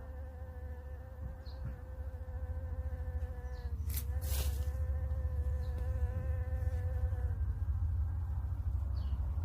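A steady buzz with overtones that dips briefly about four seconds in, then glides down and stops near the end, over a continuous low rumble, with a short hissing burst around four seconds in.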